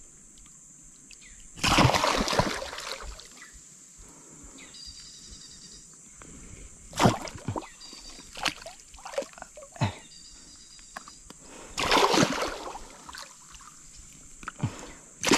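Water splashing in bursts as a hooked giant snakehead (toman) thrashes at the surface, fighting the line: three loud splashes about two, seven and twelve seconds in, with smaller sloshes between.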